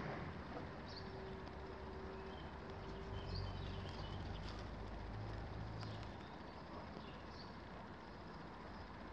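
Outdoor background of distant traffic rumble, with a faint steady hum for the first few seconds and short high bird chirps every second or two.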